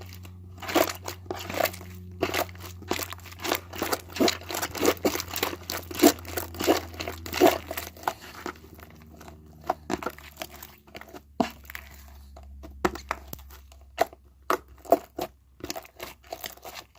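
Slime being kneaded and stretched by hand, giving off irregular sticky clicks, pops and crackles, over a steady low hum.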